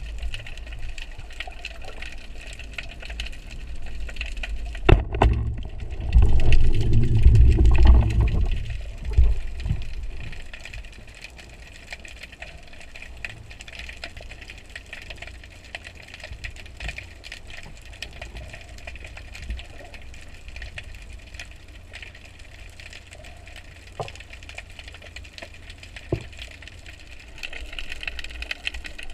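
Underwater sound through a diving camera housing: a steady low rumble with faint hiss. A sharp crack about five seconds in is followed by about three seconds of louder low churning, and then a few faint clicks.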